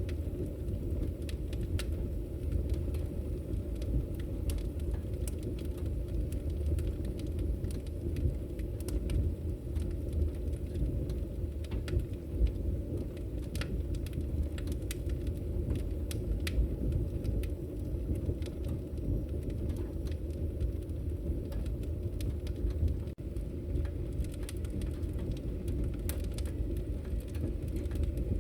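Wood fire burning in a fireplace: scattered sharp crackles and pops at irregular moments over a steady low rumble.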